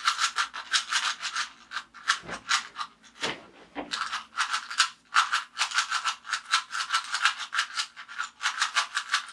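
Rubik's cube being turned rapidly over and over: a fast run of plastic clicks, several a second, with a couple of short breaks about two to four seconds in.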